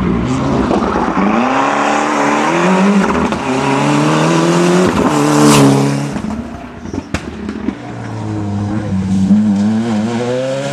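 Ford Sierra Cosworth Group A rally car's turbocharged 2.0-litre YB four-cylinder engine accelerating hard, its pitch climbing and dropping with each gear change, loudest about five and a half seconds in as it comes past. After a sharp crack about seven seconds in, the engine is heard pulling and revving again.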